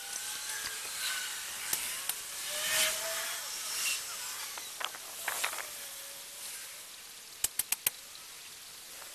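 Outdoor ambient hiss with a few faint short whistles that rise and fall, a louder swell of noise about three seconds in, and four quick sharp clicks in a row near the end.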